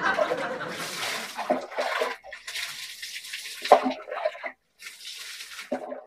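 Water splashing in three bursts of a second or two each, like dipperfuls of water poured over someone bathing. A few brief faint vocal sounds come between the splashes.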